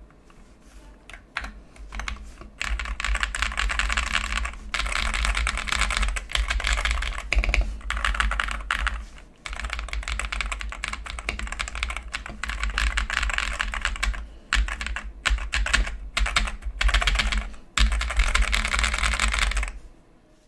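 Fast typing on an Akko 5075S mechanical keyboard with Akko Cream Yellow Pro linear switches, modded with tape, PE foam and polyfill. It types in runs of several seconds with short pauses between them.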